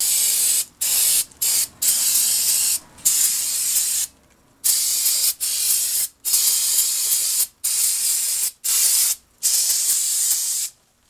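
Aerosol can of brake cleaner spraying in about ten long hissing bursts with brief gaps between them, washing down drum brake shoes and the backing plate; the spraying stops near the end.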